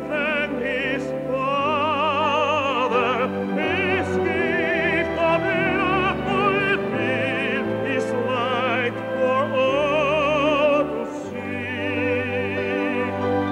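Operatic singing with wide vibrato over orchestral accompaniment, the voice holding and sliding between long sung notes.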